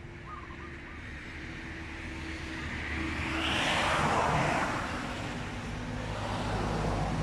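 A road vehicle passing by. Its noise swells to a peak about four seconds in and then fades.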